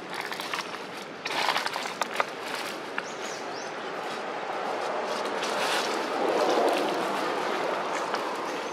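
Dry leaves rustling and crackling on a forest floor, with small sharp clicks, swelling louder for a couple of seconds after the middle. Two short high chirps sound around three seconds in.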